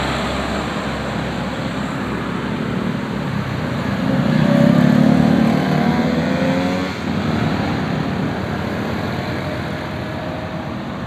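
Roadside traffic noise, with a vehicle's engine swelling louder from about four seconds in, pitch rising slightly, then easing off after about seven seconds as it passes.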